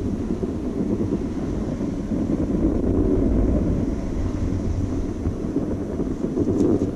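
Wind rumbling on a GoPro's microphone during a downhill ride on snow, with the hiss of sliding over the snow underneath.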